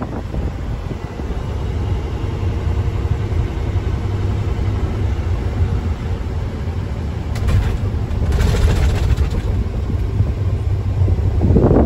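Mack Titan semi truck's diesel engine running as the truck drives, a steady low rumble, with a short hiss about eight seconds in.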